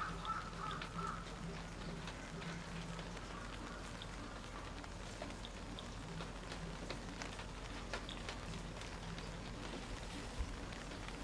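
Geiger counter clicking at random, uneven intervals, a few sharp ticks every second or two, over a low steady hum.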